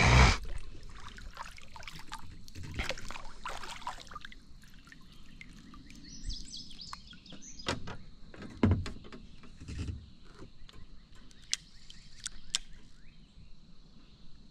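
Scattered knocks and rustles from handling fishing gear in a kayak, over quiet outdoor ambience. A bird sings briefly about six seconds in.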